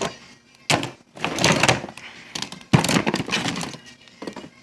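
Handling noise from plastic action figures being picked out of a mixed lot: a few sudden knocks and rustling clatters, each dying away after about a second.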